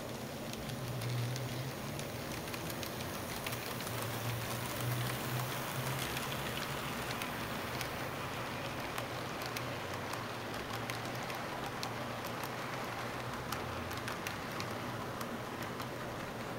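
HO-scale model passenger train rolling past: a steady rush of small metal wheels on the rails, with scattered clicks over the rail joints. Under it runs a low hum from the diesel locomotives' motors, strongest in the first half as the locomotives go by.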